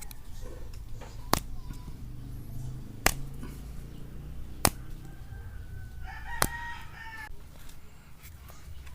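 Four sharp cracks about a second and a half apart: slingshot shots firing 9.5 mm steel balls into a catchbox. A rooster crows once, starting about five seconds in and lasting about two seconds.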